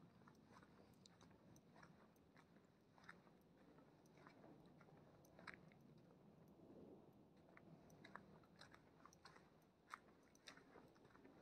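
Faint footsteps crunching and scuffing on a stone-flagged path, heard as soft, irregular clicks over a near-silent background.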